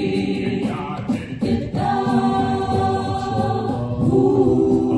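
An a cappella group singing doo-wop backing harmonies in held chords, with vocal percussion keeping the beat and the chord changing about two seconds in and again near the end.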